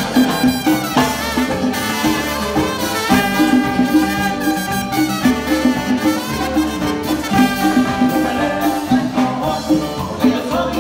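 Live Latin dance band playing an instrumental passage: trumpet and trombone over keyboard, electric bass and drums, with a steady dance beat.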